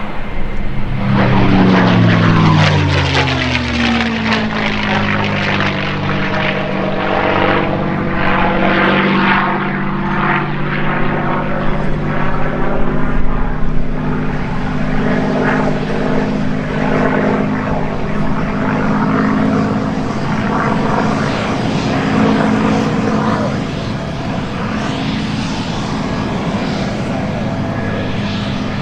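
Aircraft flying low past the observer. Its engine pitch drops steeply about a second in as it goes by, then settles into a loud, steady drone with sweeping, phasing overtones as it moves away across the field.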